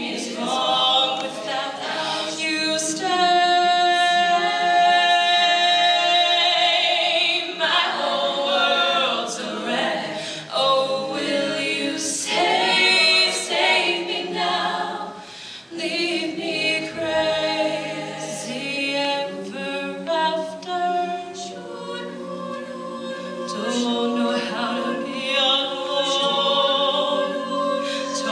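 All-female a cappella group singing in close harmony, several voices together, with a chord held steady for a few seconds near the start.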